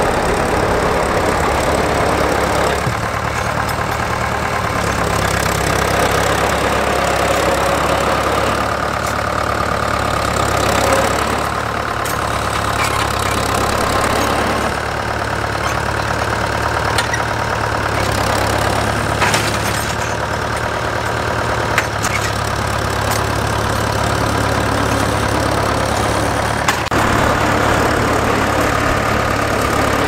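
Vintage tractor engines running steadily at low speed while pulling mounted ploughs, with a few short clicks.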